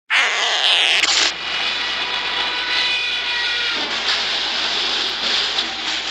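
A cartoon sound effect: a sustained rushing noise with faint whistling tones in it. It starts abruptly, holds steady for about six and a half seconds, and cuts off suddenly.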